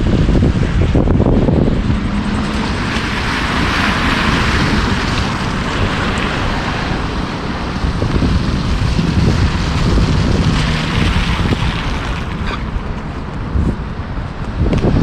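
Wind buffeting the microphone with a heavy low rumble, over a steady rushing hiss that swells twice.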